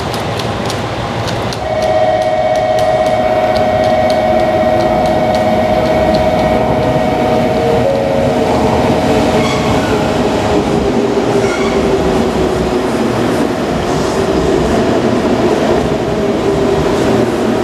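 JR Kyushu 883 series 'Sonic' electric train running close past, with wheels clicking over the rail joints and points. It gets louder about two seconds in, when a steady whine sets in. Past the middle the whine gives way to a lower tone.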